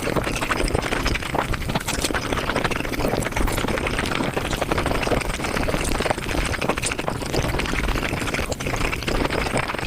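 Mukbang eating sounds sped up five times: a fast, continuous stream of chewing and mouth clicks from eating chicken, beef, rice and butter naan.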